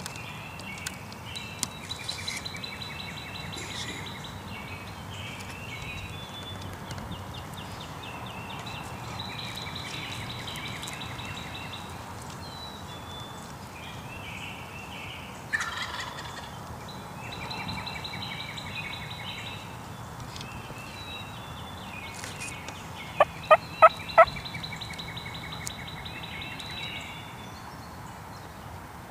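Wild turkey calling over songbirds singing in the woods. A sharp call comes about fifteen seconds in, and a quick run of four loud, sharp yelping notes comes a little after twenty-three seconds; these are the loudest sounds.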